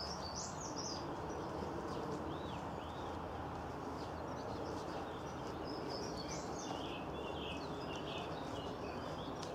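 Wild birds singing, with short chirps and warbling phrases scattered through, over a steady low background rumble.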